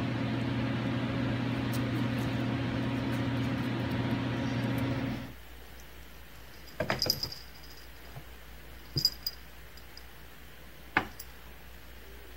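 A steady low electrical or mechanical hum for about five seconds, then it cuts off suddenly to a quiet room where a few light taps and clicks come as a kitten paws at a mirror.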